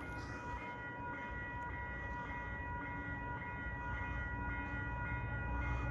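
Railroad crossing warning bell ringing steadily at about two strikes a second, over the low rumble of an approaching train that grows slightly louder toward the end.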